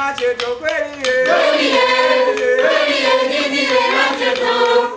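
Large drum band singing together in unison, loud and sustained. About a second in the many voices join over a leader's voice and strokes on tall hide-headed drums struck with bamboo sticks.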